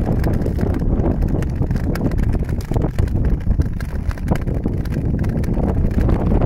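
Ice skates gliding over frozen lake ice, the blades giving irregular clicks, under heavy wind rumble on the microphone.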